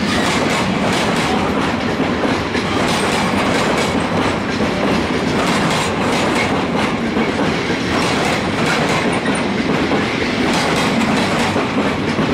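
Freight train of loaded flat wagons rolling past close by, a steady rumble of wheels on rail with repeated clicking as the wheels cross rail joints.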